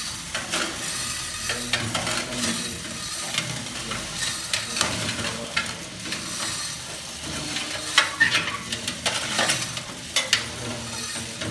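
Roasted coffee beans pouring from a coffee roaster's discharge chute into a clear jar: a continuous rattling patter of many small clicks, with a few louder clicks about eight seconds in. The roaster's drum and electric motor run beneath it.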